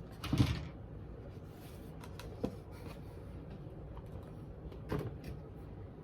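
Items being handled and packed into a shoebox: three short knocks with a little rustling, the loudest about half a second in, the others around two and a half and five seconds in.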